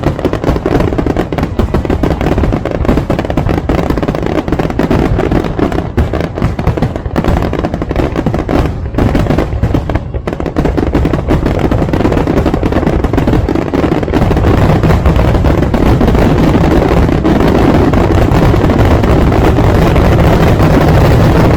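Fireworks display: rapid, overlapping bangs of aerial shells going off almost continuously, growing louder and denser about two-thirds of the way in.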